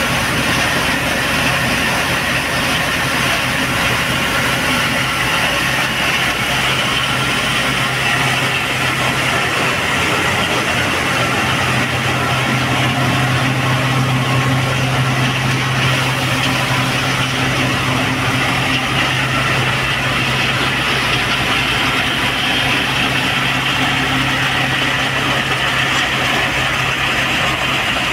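A Fiat 640 tractor's diesel engine driving a belt-driven wheat thresher through its PTO shaft, both running steadily under load. A low engine hum that grows a little stronger for a while midway sits under the whirr and rush of the thresher.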